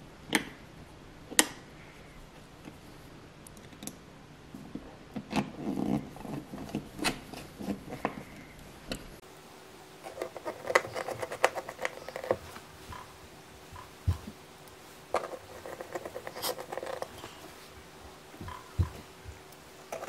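A screwdriver turning the small screws of a switch faceplate into place, with scattered clicks and short scratchy scrapes of metal on the plate.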